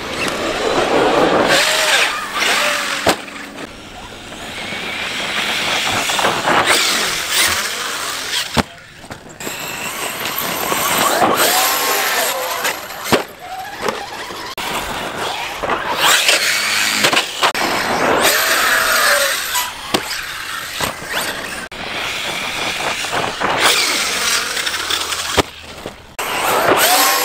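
Large radio-controlled trucks running and jumping on dirt. Their motors whine up and down in pitch in repeated swells a few seconds long, with tyres throwing dirt.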